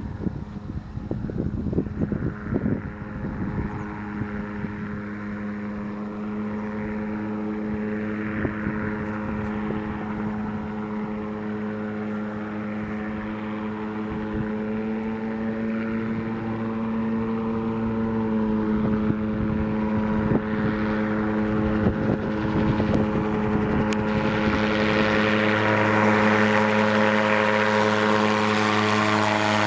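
Yamaha Genesis RX1 four-cylinder, four-stroke snowmobile engine, converted for aircraft use, running steadily at flight power and driving the pusher propeller of an Air Command gyroplane in flight, a steady drone. Wind buffets the microphone in the first few seconds. The drone grows louder and fuller in the last few seconds.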